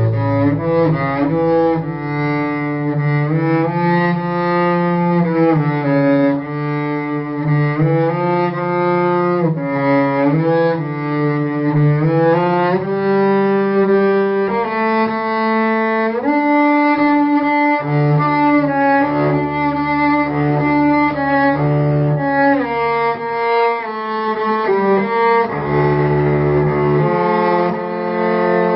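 Cello music: a slow bowed melody of long held notes moving from pitch to pitch over sustained low bass notes.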